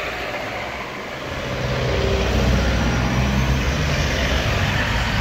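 Cars driving over a level crossing close by, engine and tyre noise, growing louder about a second and a half in as a car comes up near.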